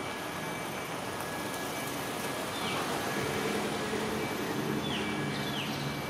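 Steady background rumble of vehicle traffic, with a lower engine hum coming in about halfway through. Three short bird chirps sliding downward in pitch, one around the middle and two close together near the end.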